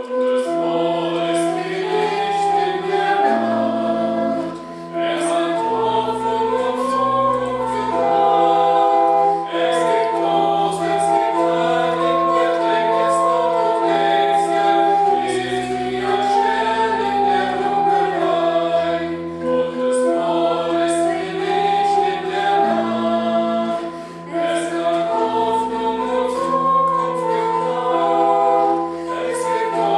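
Women's voices singing a sacred song with instrumental accompaniment and held bass notes, starting abruptly.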